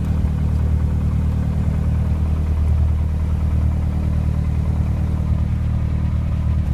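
Light propeller airplane's piston engine and propeller in cruise, heard inside the cabin as a steady low drone.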